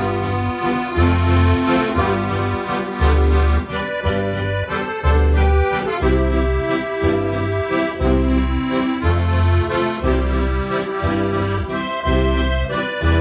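Accordion playing a traditional Oberkrainer-style tune, a melody of held notes over a steady alternating bass-and-chord beat.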